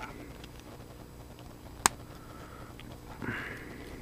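Hands handling small hard-plastic action-figure parts: one sharp plastic click about two seconds in, a few faint ticks and a soft rustle near the end, over a low steady room hum.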